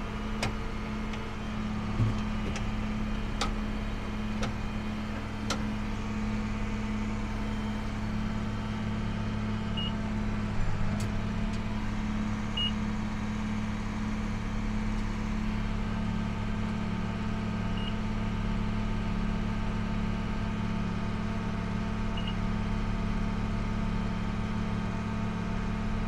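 Tractor engine running steadily while pulling a round baler in the hay field, with four short high beeps a few seconds apart.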